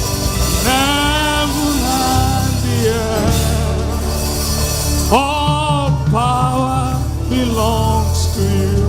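Gospel praise-and-worship singing: a lead voice sings held, sliding notes over a band with a steady bass line.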